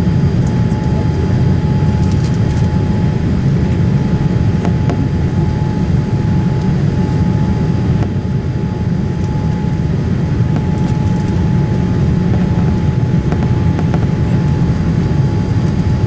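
Steady cabin roar inside a Boeing 787-8 Dreamliner: engine and airflow noise, heaviest in the low rumble, with a thin steady whine running over it.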